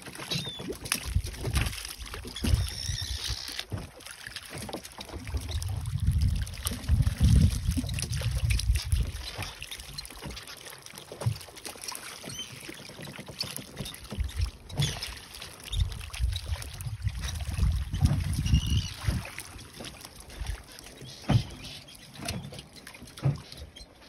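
Freshly caught prawns and small fish flicking and jumping in a fishing net: a scatter of light clicks and slaps, with a low rumble that swells twice.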